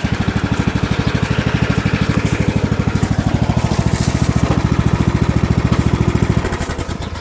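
Small engine running steadily with an even, rapid low pulse, dying away near the end.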